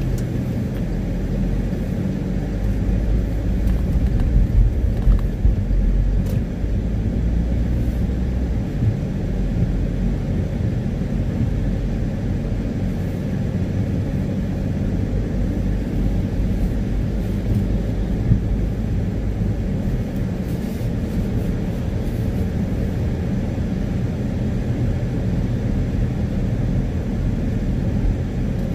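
Inside a moving car on a wet road: a steady low rumble of engine and tyres, a little louder a few seconds in.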